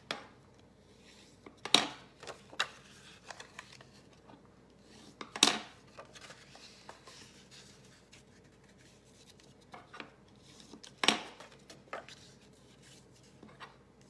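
Card stock being folded along its score lines and creased with a bone folder: a few short, sharp paper scrapes and rustles, the loudest about two, five and a half and eleven seconds in, with light handling ticks between.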